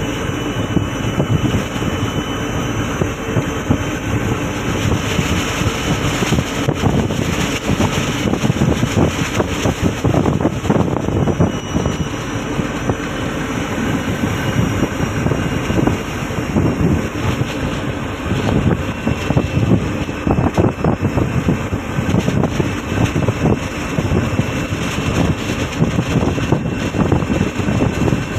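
Fishing trawler's engine running steadily under way, a dense rumble with wind buffeting the microphone.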